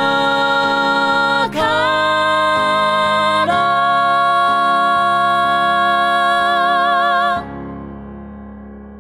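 Closing of a song: long held sung notes with vibrato over backing music, moving up twice, then stopping abruptly about seven and a half seconds in and leaving a fading ringing tail.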